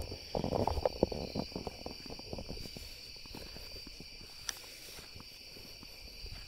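Night insects, crickets, chirring in a steady high-pitched chorus. Over it, crunching footsteps on the ground during the first two seconds or so, then fading out.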